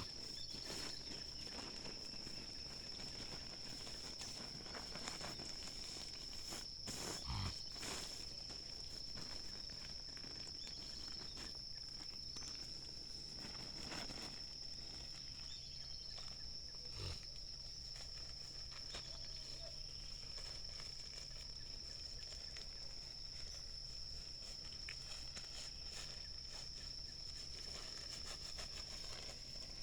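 Night insects, likely crickets, keeping up one steady high-pitched trill, with a few soft knocks and rustles now and then.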